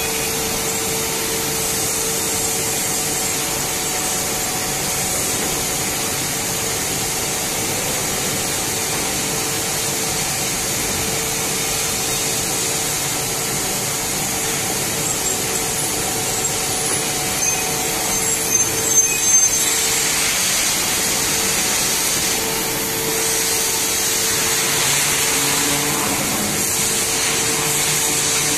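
Steady forge-shop machinery noise: a continuous rushing roar with a steady hum under it, and a few light clatters about two-thirds of the way through.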